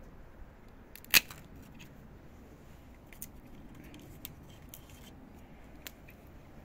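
Hand pruning shears snapping shut through a woody, leafless grape cane: one sharp, loud snip about a second in. A few faint clicks follow.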